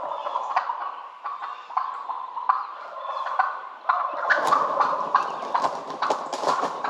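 Wild turkeys gobbling and calling in rapid rattling notes, louder for a couple of seconds about four seconds in.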